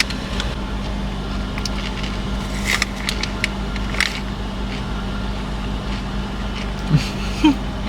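Steady low rumble and hum inside a car's cabin, with a few light clicks about three and four seconds in.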